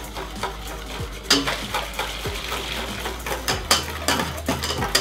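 Wire balloon whisk beating hot milk into an egg-yolk, sugar and cornflour paste in an enamel bowl. The wires make quick, irregular clicks and scrapes against the bowl.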